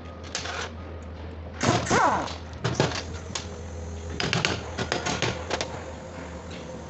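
Metal parts of a dismantled piston-type hydraulic pump clinking and knocking as they are handled, in irregular clusters, over a steady low machine hum.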